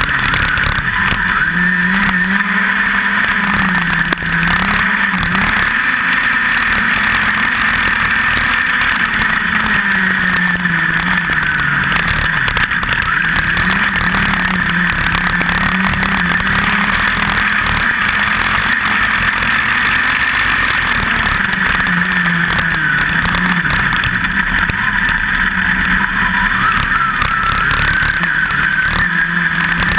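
Onboard sound of a USAC midget race car's engine at race pace on a dirt oval, its pitch dipping and then climbing again every several seconds as the car goes through the turns and back onto the power. Steady wind rush over the microphone runs beneath it.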